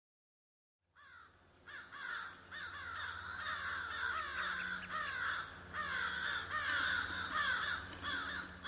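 A flock of birds calling, a dense run of short calls that each fall in pitch, overlapping one another and starting about a second in.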